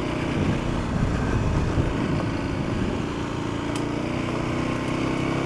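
Kawasaki KLX250's single-cylinder four-stroke engine running under the rider's throttle, its pitch wavering up and down at first and then holding steadier.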